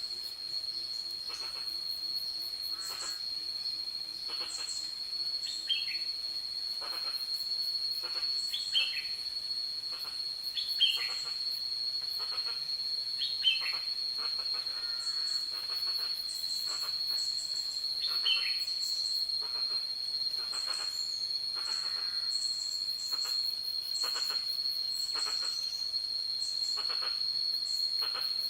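Forest ambience: an insect's high, unbroken trill, with short falling chirps repeating every two or three seconds and higher chirps scattered over it.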